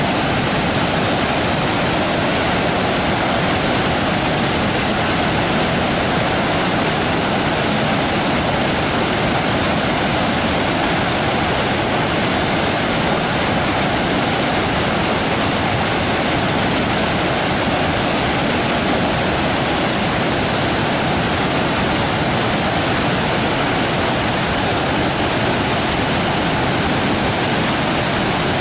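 Waterfall rushing: a loud, steady roar of falling water with no breaks.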